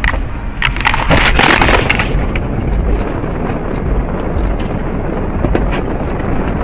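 Car crash: a burst of crunching, breaking impacts about a second in, lasting about a second and a half, over steady road noise, with a couple of sharp knocks later on.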